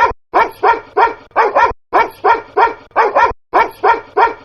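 Dog barks cut into a rhythmic DJ loop at about 150 BPM: a bar of quick barks repeats identically about every 1.6 seconds, with a short silent gap between bars.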